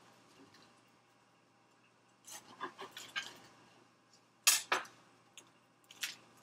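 Crusty sourdough loaf crackling as it is finished off with a bread knife and broken apart by hand on a wooden board. A cluster of small crackles comes about two seconds in, and two sharp cracks, the loudest sounds, a little past halfway, then a few lighter clicks.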